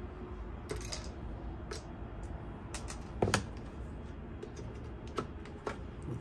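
Scattered small clicks and taps of metal on metal and plastic as a screwdriver works at a laptop-size hard drive's sheet-metal mounting bracket and the bracket is lifted out of the computer's chassis. The loudest is a quick double tap about three seconds in.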